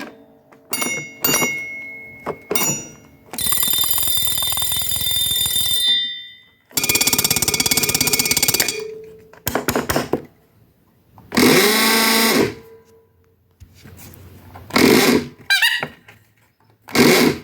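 Fotoplayer sound effects worked one after another: a few bell strikes, a long ringing bell, a fast rattle, a loud sustained tone that bends in pitch, and near the end short bursts with a quick warbling whistle.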